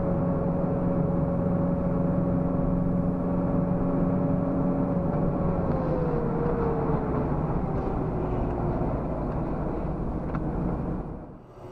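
Engine and road noise of a vehicle driving on a highway, a steady hum whose pitch slides down about halfway through as the vehicle slows.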